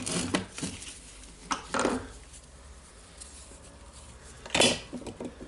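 A screwdriver prying at an angle grinder's housing, making a few scattered clicks and knocks of metal on plastic, the sharpest about four and a half seconds in.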